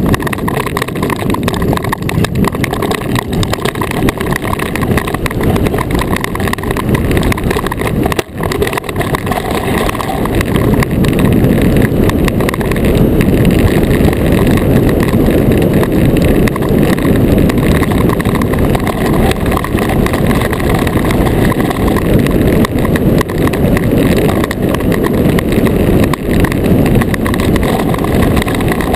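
Iceboat runners rumbling steadily across smooth lake ice at speed. The rumble drops briefly about eight seconds in and runs a little louder from about eleven seconds on.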